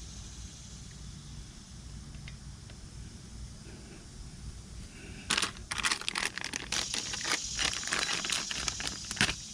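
Plastic packaging crinkling and rustling as backrest parts are unwrapped, starting about halfway through in a dense run of crackles and stopping shortly before the end; a low steady hum before it.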